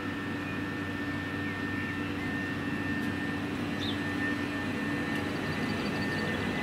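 Southern Class 377 Electrostar electric multiple unit running slowly into the platform: a steady electric whine over a low rumbling hum, growing gradually louder as it draws closer.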